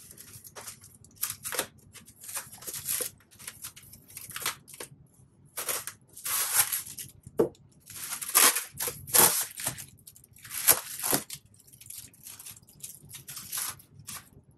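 Packing tape being slit with a blade and pulled away from a styrofoam shipping crate: a string of short, uneven noises, loudest in the middle.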